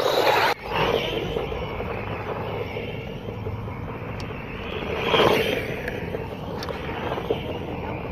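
Electric 1:12 RC cars, a Wltoys 12428 buggy with its 540 brushed motor among them, driving fast over dry dirt and stubble: loud as they pass close at the start, then a steady motor whine and tyre noise from farther off, swelling again about five seconds in.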